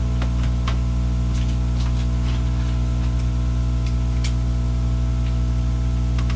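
Steady hum inside an airliner cabin on the ground, a loud drone of several fixed tones over a hiss of air, with scattered light clicks and knocks.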